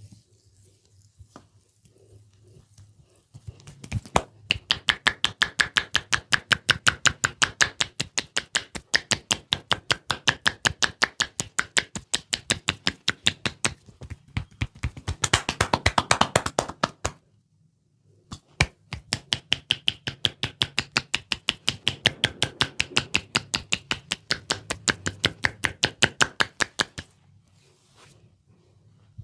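Hands striking rapidly and evenly in head-massage percussion, about five strikes a second, in two long runs with a short break in the middle.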